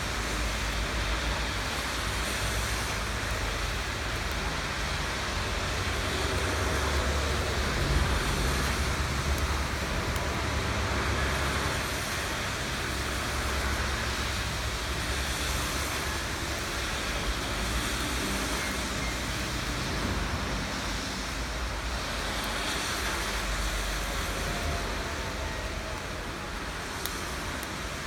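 Steady rain falling, an even hiss, with a low rumble underneath and a single faint click near the end.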